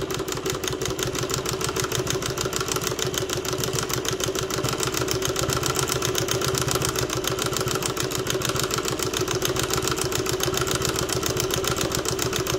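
Mauzer International chainstitch embroidery machine stitching at a steady speed while sewing a circle fill: a rapid, even clatter of stitches over a steady hum.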